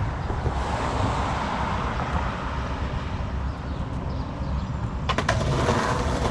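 Steady road and engine rumble of a moving car. From about five seconds in, a run of sharp clicks and knocks joins it.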